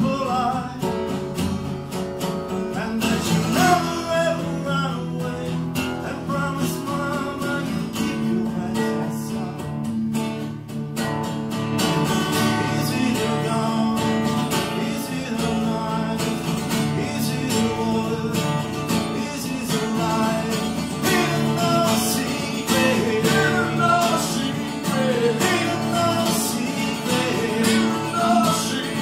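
Two acoustic guitars strumming steady chords while a harmonica in a neck rack plays a wavering, bending melody over them: an instrumental harmonica break in a folk-style song.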